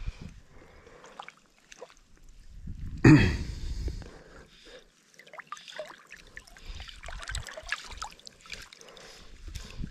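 Shallow seawater sloshing and trickling, with one loud splash about three seconds in.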